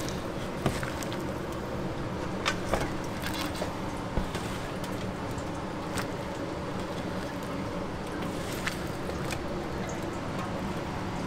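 Gloved hands tossing and squeezing chili-seasoned napa cabbage in a large stainless steel bowl: wet squishing and rustling, with a few sharp clicks. A steady background hum runs underneath.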